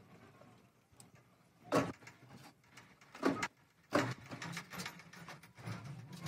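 Hard plastic headlight housings and car parts being handled and put down: scattered knocks and rattles, with three louder knocks about two, three and four seconds in.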